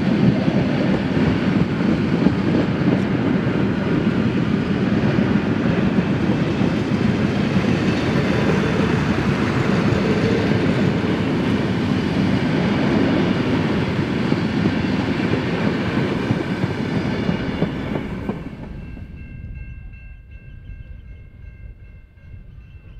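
Passenger carriages of a steam-hauled train rolling past close by: a loud, steady rumble and clatter of steel wheels on the rails. About three quarters of the way through it dies away.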